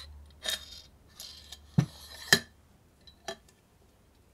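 Handling noise from motorcycle fork parts being moved on a cloth: a few short rustles and sharp knocks, the loudest two knocks close together about two seconds in, then a last small click.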